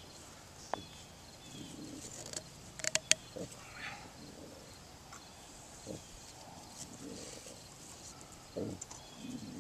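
Faint handling sounds of rope being wrapped and knotted around the folded-over end of a drip irrigation line, with a few sharp clicks about three seconds in and a soft knock near the end, over quiet outdoor background.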